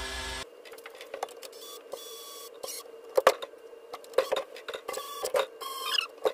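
A drill motor turning the ball screw stops abruptly about half a second in. It is followed by scattered sharp clicks and knocks of metal tools and parts being handled over a faint steady hum.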